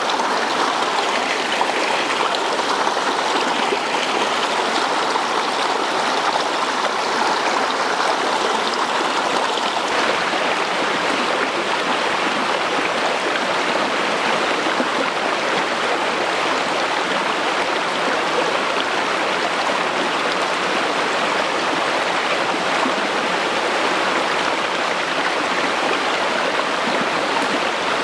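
Steady rush of stream water running over rocks, its tone shifting slightly about ten seconds in.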